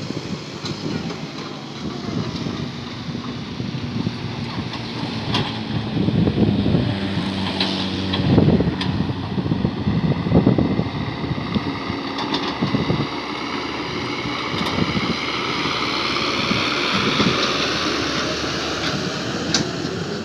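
Excavator's diesel engine and hydraulics working steadily, with a whine that rises and falls and a few sharp knocks.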